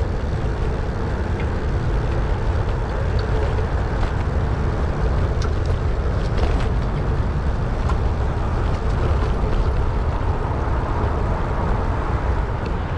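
Steady low rumble of wind on the microphone of a moving bicycle, with city motor traffic running alongside.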